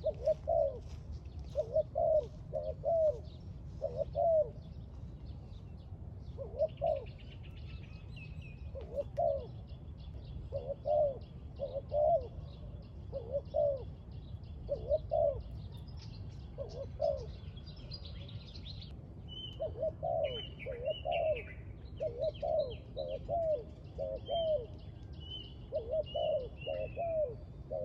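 Spotted doves cooing in short repeated phrases of two or three coos each. Small birds chirp and trill higher up through much of the middle and later part, over a low steady background rumble.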